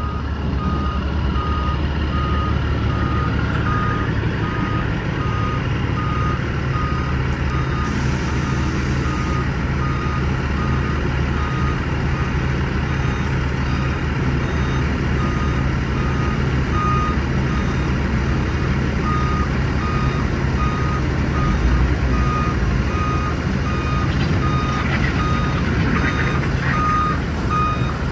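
Heavy vehicle's backup alarm beeping at an even pace, one pitch, over the low running of diesel engines.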